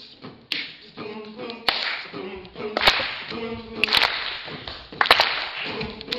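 Group beatboxing: sharp, clap-like snare hits about once a second, with short sung vocal tones and hissing sounds between them.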